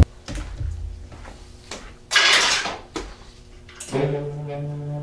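A few knocks and clunks, then a short loud hissing burst about two seconds in; near the end, background music with held notes comes in.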